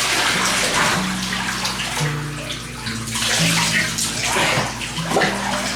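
Water splashing and running in a bathtub while a dog is being washed.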